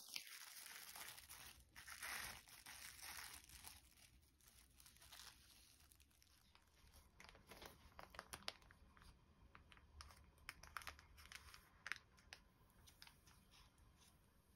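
Faint crinkling of plastic cling wrap for the first few seconds, then scattered light crackles and clicks of parchment paper as a piece of proofed dough is lifted and handled.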